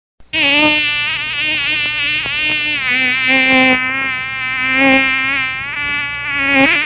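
A flying insect buzzing, a loud wingbeat drone whose pitch wavers up and down as if it circles near the microphone. It starts abruptly and cuts off near the end.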